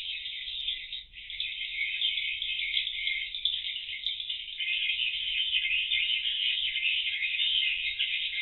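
Swiftlet calls: a dense, unbroken high twittering.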